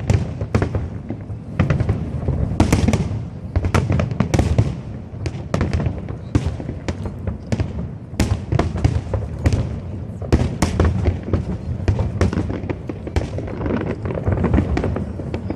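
Fireworks display: a dense, continuous barrage of sharp bangs and crackles over a deep, steady low booming.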